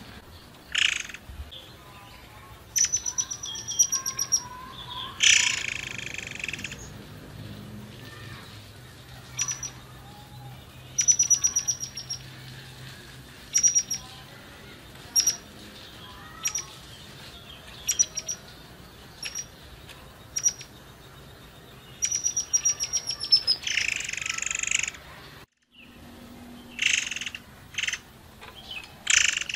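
Murai air singing in a cage: sharp high chirps and fast ringing trills come every second or two, with a harsh raspy call about five seconds in and another near 24 seconds.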